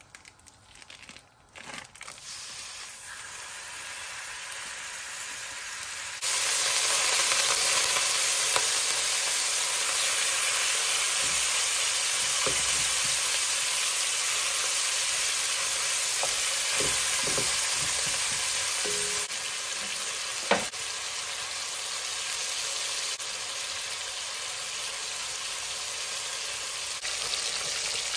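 Ground beef sizzling and frying in hot olive oil in an enameled cast-iron pot. The sizzle grows louder about six seconds in and then holds steady, with a few knocks and scrapes of a meat chopper against the pot.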